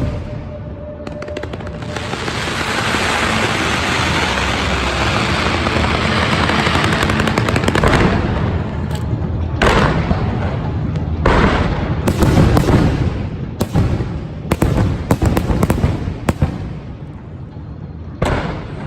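Fireworks display: a dense, hissing crackle for several seconds, then many sharp bangs from bursting shells, some in rapid strings.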